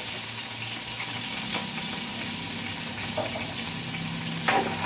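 Sliced onions and minced garlic frying in hot oil in a wok, a steady sizzle, with a short clatter near the end.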